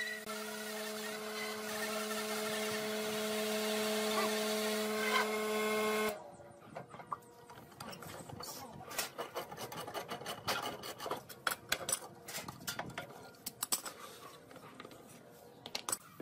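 A drill press runs with a steady motor hum while a hole saw cuts into pine, then the sound stops abruptly about six seconds in. After that come irregular light knocks and clicks.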